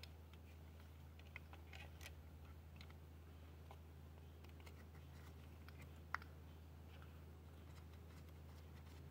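Near silence over a steady low hum, with a few faint clicks and one sharper click about six seconds in, as a gloved hand handles the engine's plastic injector wiring connectors.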